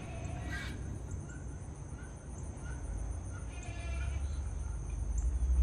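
Birds calling outdoors: scattered short chirps and two louder, harsher calls about half a second and three and a half seconds in, over a steady low rumble and a thin high-pitched drone.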